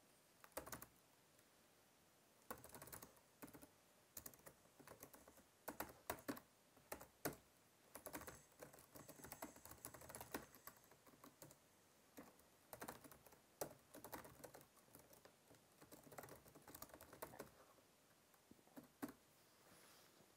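Faint typing on a keyboard: runs of quick key clicks with short pauses between them.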